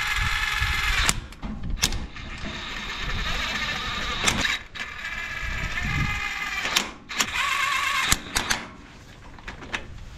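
Cordless power ratchet running bolts into the PTO seal housing of a Ferguson TEF20's rear axle, in several bursts of motor whine of one to two seconds each, with clicks between the bursts and near the end.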